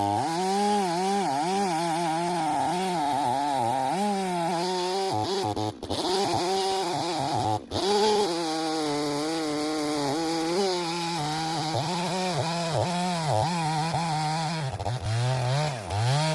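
Stihl chainsaw cutting through knotty wood, its engine pitch repeatedly dipping under load and recovering. There are two brief dropouts partway through, and the revs fall away at the end.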